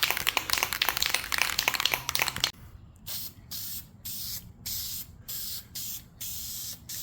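Aerosol can of Dupli-Color fabric spray paint: first a loud rattle of the can being shaken for about two and a half seconds, then short hissing bursts of spray, about two a second, laying on a first coat.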